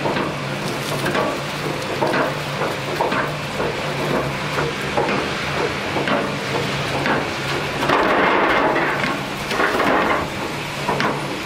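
Fimaksan log unscrambler and chain log conveyor running, a steady machine hum under the clatter of drive chains and the knocking of logs rolling against each other and the steel frame. The rumbling clatter grows louder for a couple of seconds near the end as a log tips over into the infeed trough.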